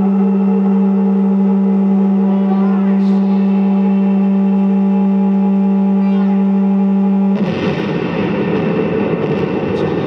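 Experimental electronic music from keyboards and effects: a loud, steady drone holding one low note with overtones above it and faint rising sweeps. About seven seconds in it cuts abruptly to a dense, noisy wash.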